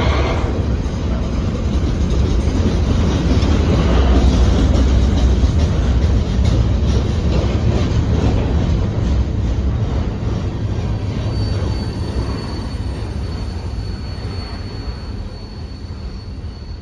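Freight train of double-stack container well cars rolling past close by, the steel wheels rumbling and clacking. The sound fades in the last third as the end of the train passes and draws away, and a thin, high steady whine rings on from about two-thirds of the way through.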